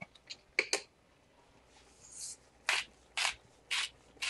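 Hand-twisted salt and pepper grinders grinding seasoning over the pan. A few light clicks are followed by short rasping strokes, about two a second, starting a little past halfway.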